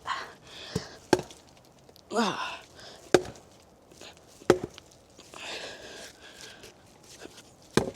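An axe chopping into a log to split it: a few separate sharp wooden strikes a second or two apart, the last one just before the log splits.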